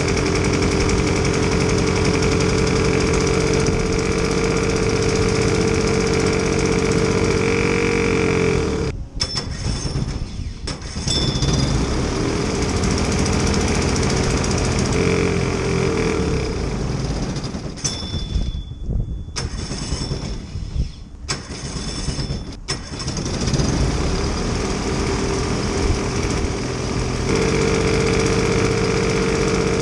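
A small airplane's engine running at speed. It runs steadily at first, then stumbles and almost cuts out several times between about 9 and 23 seconds in, and picks back up to run steadily again near the end.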